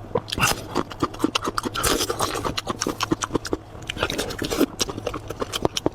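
Close-miked eating of braised sheep head: wet chewing, lip-smacking and sucking of the meat, heard as a dense run of short clicks and smacks.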